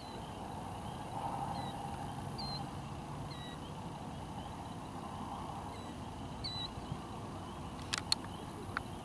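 Outdoor night ambience: a steady hiss with a few faint, short high chirps scattered through it, and a few sharp clicks about eight seconds in.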